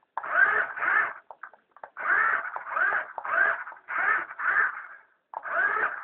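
A ferret making short chattering bursts, about eight in a row, each roughly half a second long, with a short gap near the end.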